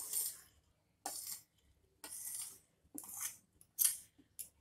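A spoon scraping grated cauliflower off a paper plate into a glass bowl: a series of short, soft scrapes, about one a second.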